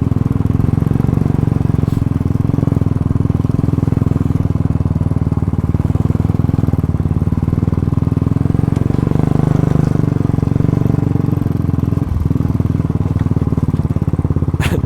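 Motorcycle engine running steadily at a constant pace, with a brief dip about twelve seconds in.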